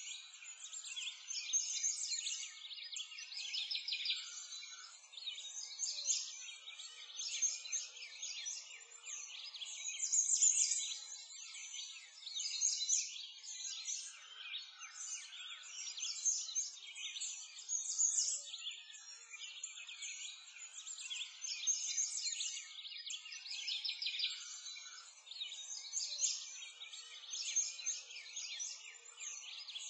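Many small birds chirping together in a dense, continuous chorus of high, quick calls.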